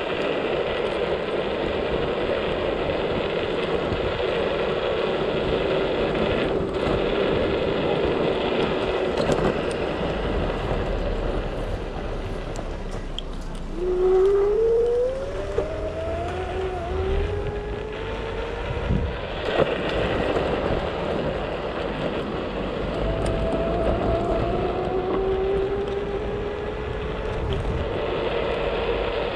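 Motor scooter engine running under a steady rush of road noise; its pitch climbs as it speeds up, about halfway through and again near the end.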